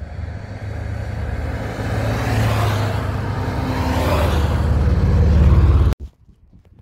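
A group of motorcycles approaching and riding past close by, the engines getting steadily louder to their loudest just before the sound cuts off suddenly, leaving only faint wind.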